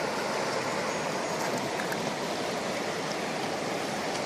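A river running fast, a steady rush of water.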